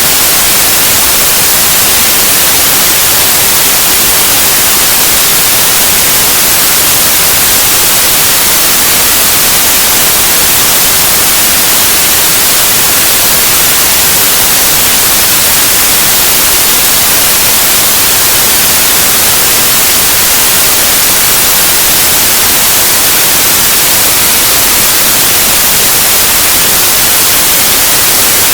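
Loud, steady white noise: an even hiss that stays unchanged throughout.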